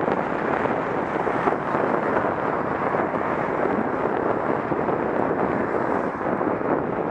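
Steady wind noise rushing over a cyclist's head-mounted camera microphone while riding.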